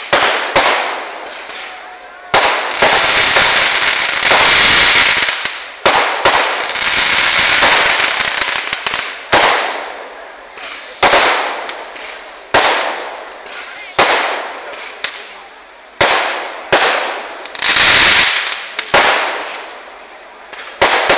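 Fireworks going off one after another: a dozen or so sharp bangs at uneven intervals, each fading away, with twice a longer stretch of dense hissing crackle.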